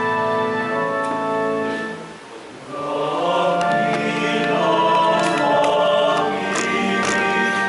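Church organ holding sustained chords, a short break about two seconds in, then a choir starts singing a hymn with the organ: the offertory hymn of the Mass.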